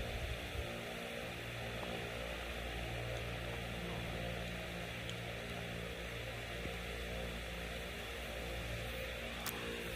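Steady low hum made of several even tones under a constant hiss, with a single sharp click near the end.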